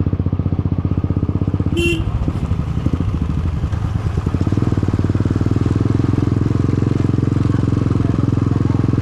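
Motorcycle exhaust running very loud and steady, its rapid pulses filling the sound. A short high beep cuts in briefly about two seconds in.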